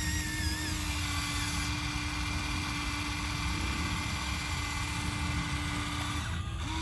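Electric motor of a radio-controlled model machine running with a steady, even whine over a low rumble, then stopping near the end.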